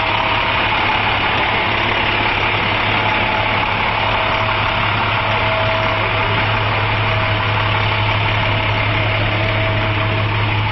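International medium-duty fire crew truck's engine idling steadily, heard up close, with an even low hum that does not change.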